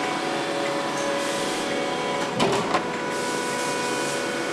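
Heated plywood-forming press running with a steady machine hum of several held tones as the press opens after heating. A few sharp knocks come about two and a half seconds in.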